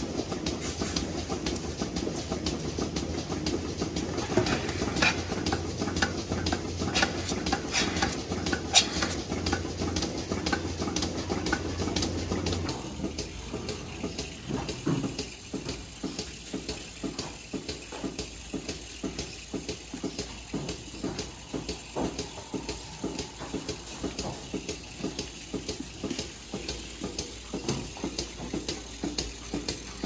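Rotary milking parlour running: a steady mechanical hum with rapid clattering clicks, as of the turning platform and the milking equipment. About halfway through the sound changes abruptly to a quieter run of evenly repeating clicks.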